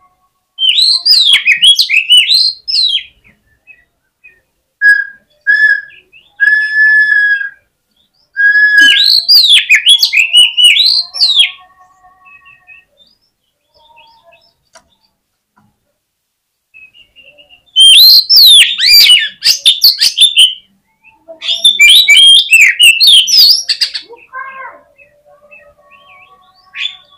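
Oriental magpie-robin (kacer) singing loud, fast bursts of varied, sweeping song phrases, with a few short clear whistles between bursts and a pause of several seconds midway. This is the energetic, aggressive 'fighter' song used to provoke rival males.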